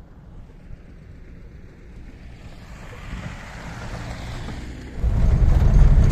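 Wind buffeting the microphone, with a vehicle's engine rumble slowly growing louder. About five seconds in, it breaks off abruptly into the much louder low rumble of a car being driven along a rough dirt road, heard from inside the cabin.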